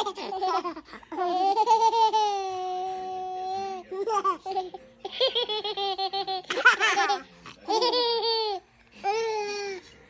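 Two babies laughing and squealing: a long, high held squeal about a second in, then choppy bursts of giggling, and another shorter squeal near the end.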